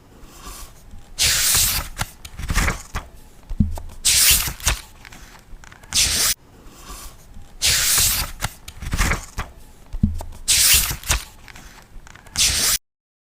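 Paper book pages being turned: a series of rustling swishes, a louder one every two to three seconds with softer paper rustles in between, cutting off abruptly just before the end.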